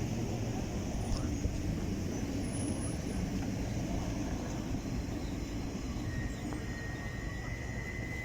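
Electric trains running into the station: a steady low rumble, joined about six seconds in by a thin, high, steady squeal.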